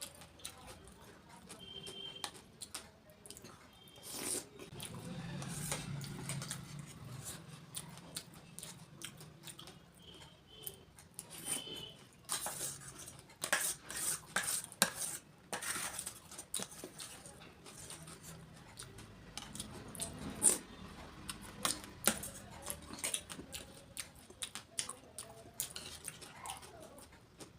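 Close-up eating sounds from a meal of golgappe: clinking of a spoon and puris against plates and bowls, with irregular clusters of sharp crunchy clicks, busiest about halfway through.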